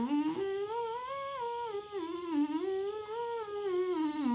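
A male singing voice humming a scale, stepping up and back down in pitch and sliding low at the end. It is a demonstration of keeping every note in the same position, without darkening or deepening as the pitch changes.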